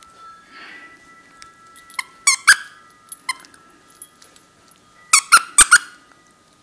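Squeaky plush toy squeaking in short, sharp bursts as a Pembroke Welsh Corgi puppy bites and chews it. There is a cluster of about five squeaks starting about two seconds in, and another quick run of four near the end.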